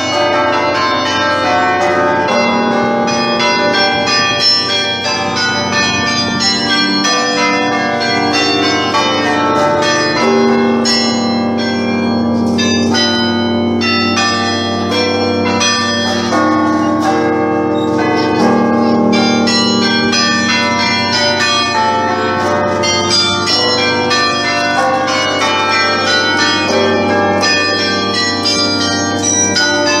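The carillon bells of the Belfry of Bruges playing a tune, many struck bell notes at different pitches following one another and ringing on over each other without a break.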